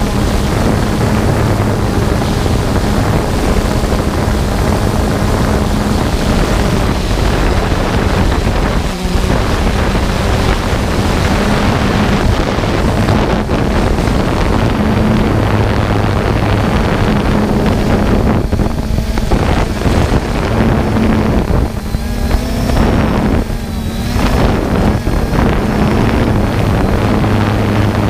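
Small multirotor drone's propellers and motors whirring steadily with a low hum, mixed with wind buffeting the onboard camera's microphone.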